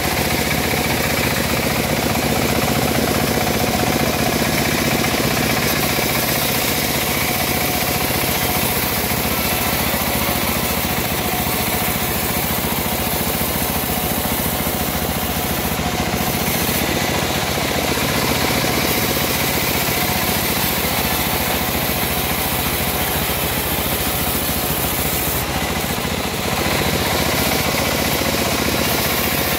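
Homemade bandsaw mill running steadily, its blade sawing lengthwise through a teak beam as it is fed along the table. The sound dips briefly about three-quarters of the way through, then picks up again.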